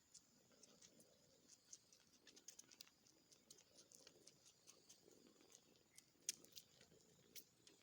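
Faint purring of a nursing mother cat, with many irregular soft clicks and smacks from the kittens suckling; the sharpest click comes about six seconds in.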